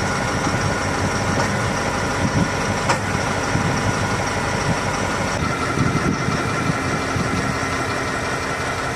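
KamAZ truck diesel engine idling unevenly with a knock, the engine jerking as it runs. The scanner had earlier logged a fuel rail pressure regulator valve fault.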